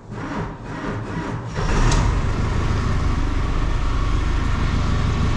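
Fendt Xylon tractor's diesel engine cranking on a 12-volt jump-starter boosting one battery of its 24-volt system. It catches about a second and a half in and settles into a steady idle. The batteries are suspected to be weak.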